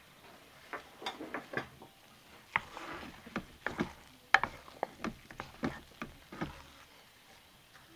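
A spoon scraping and knocking against the ceramic crock-pot insert while scooping thick, stiffening hot-process lard soap, in irregular strokes with the sharpest knock about four seconds in.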